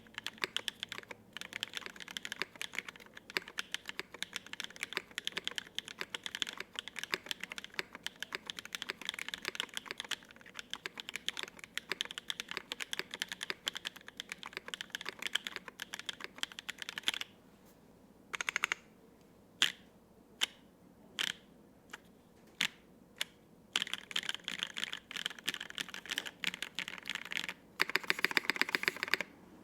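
Typing on a gasket-mounted 75% mechanical keyboard with lubed linear switches on an aluminium plate and ABS keycaps: fast continuous keystrokes, then a few seconds of single, separate key presses, then typing again, ending with a quick even run of keystrokes.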